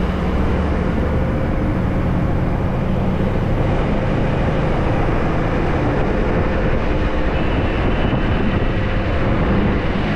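BharatBenz truck's diesel engine running steadily, with road noise, heard from inside the cab.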